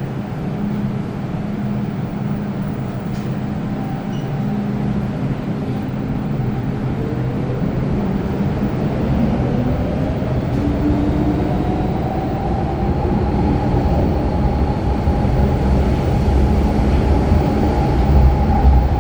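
MTR Kwun Tong Line M-Train electric multiple unit accelerating, its traction motor whine rising in pitch about halfway through over a rumble of wheels on rail that grows steadily louder.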